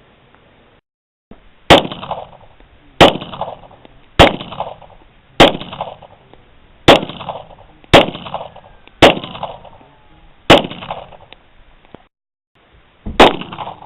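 Nine single shots from a Springfield XDM-40 pistol in .40 S&W, fired one at a time roughly a second or a second and a half apart, each followed by a short echo. A longer pause comes before the last shot.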